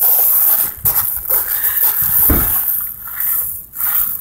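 Loud, uneven rushing noise on a handheld phone's microphone held close to the face, with a low thump about two seconds in.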